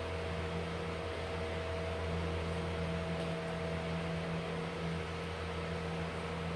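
Steady machine hum with an even hiss, like an appliance or fan running.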